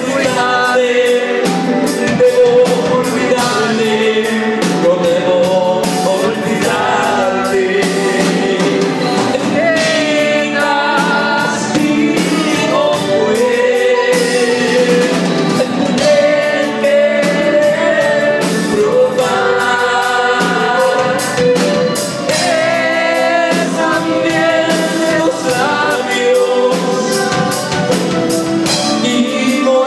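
Male vocalist singing live into a microphone, backed by a band with electric bass and drum kit.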